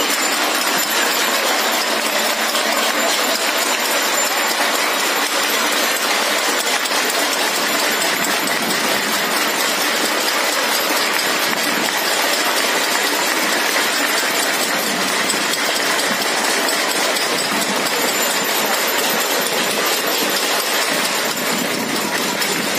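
Many people across neighbouring balconies and rooftops clapping and beating steel plates and pots with spoons and sticks, a continuous clattering, clinking din that holds steady. It is the Janta curfew's collective clapping salute for essential workers.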